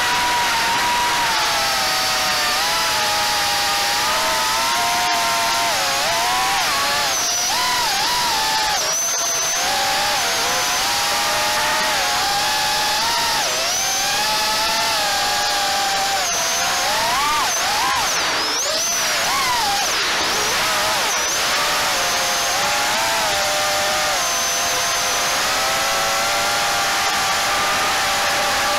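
Onboard sound of a Diatone GT R349 HD quadcopter's brushless motors and propellers in flight: a high whine that rises and falls in pitch with every throttle change, over a steady rush of air.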